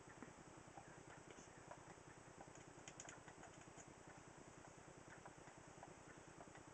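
Near silence: a faint steady low hum of the recording, with scattered faint ticks that cluster about halfway through.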